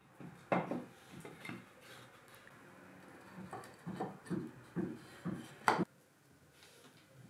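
Red-painted pallet-board panels being handled and fitted into a white-painted wooden frame: a string of irregular wooden knocks and clacks, with two sharper knocks, one about half a second in and one near the end, and softer rubbing and handling between them.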